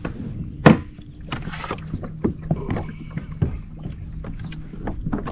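Sharp knock under a second in, then scattered light knocks and clatter of gear against plastic fishing kayaks.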